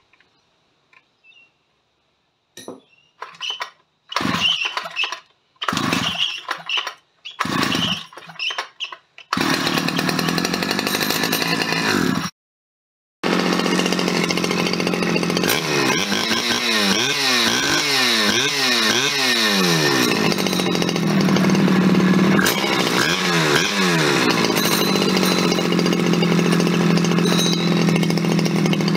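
Stihl 010 AV two-stroke chainsaw being pull-started: four short cranks on the recoil, then the engine catches and runs, so the rebuilt carburettor is now drawing fuel. It is revved up and down several times, then settles to a steady fast idle.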